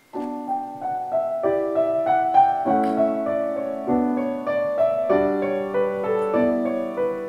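Grand piano starts playing the introduction to a song, a melody over chords that change about every second.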